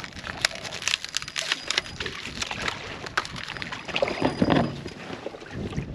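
A hooked rainbow trout splashing at the surface beside a drift boat about four seconds in, over water lapping against the hull and scattered small clicks and knocks from the boat and tackle.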